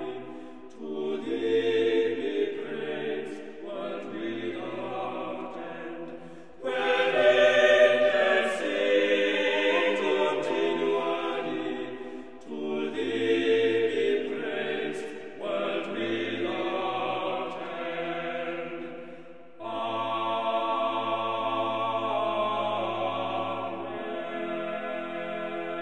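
Background choral music: a choir singing in phrases with short breaks, settling into a long held chord for the last few seconds.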